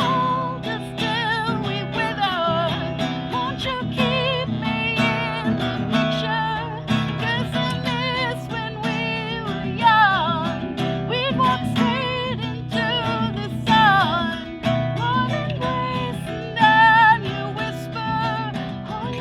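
Music from a home song demo: an acoustic guitar plays a steady accompaniment under a melody line that glides and wavers with vibrato, with no lyrics sung.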